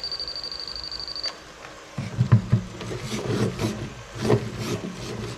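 A steady high whine that cuts off just over a second in, then from about two seconds a run of short whirring, buzzing movements with clicks: the RC drift car's steering servo swinging the front wheels as the chassis is turned by hand to test the drift gyro's response.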